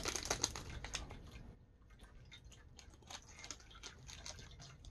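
Plastic candy-bar wrapper crinkling as it is handled: dense crackling in the first second and a half, then only sparse faint clicks.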